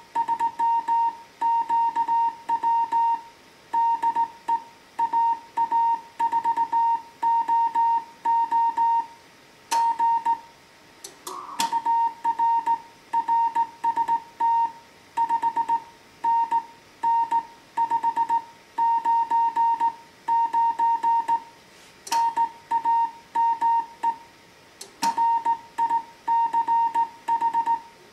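Slow Morse code (CW) from a Heathkit HW-101 transceiver: a steady tone of about 1 kHz keyed on and off in dots and dashes, with brief pauses between words. A few sharp clicks fall between the characters.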